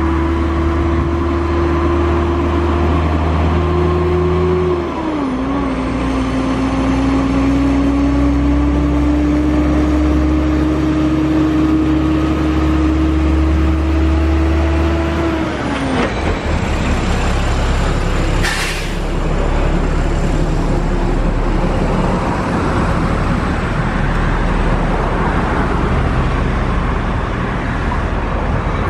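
Eurowings Discover Airbus A330's twin turbofan engines running at taxi power with a steady whine and hum. The pitch eases down about five seconds in and again around fifteen seconds, leaving a steady rushing noise. A single sharp click comes a little past halfway.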